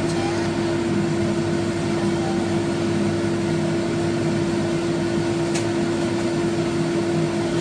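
Steady hum of an electric fan motor: one constant tone over an even whoosh. A faint click comes about five and a half seconds in.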